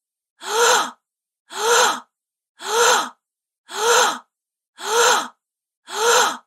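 A woman's short gasp, breathy with a brief voiced catch, the same recording repeated about once a second with silence between: six gasps.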